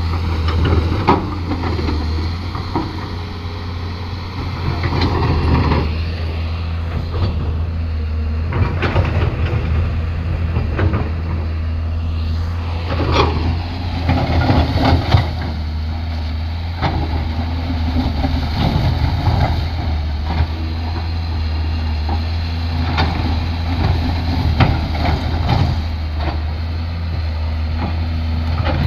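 Hyundai HX210S hydraulic excavator's diesel engine running steadily, with scattered knocks and clatter of the bucket digging coal.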